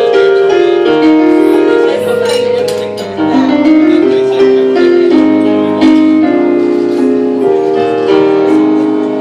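Piano music: a slow passage of held chords, with the melody stepping down and then back up.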